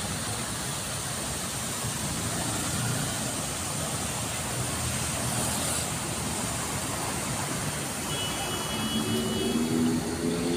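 Steady traffic noise from cars on a city road. A faint high tone sounds briefly about eight seconds in.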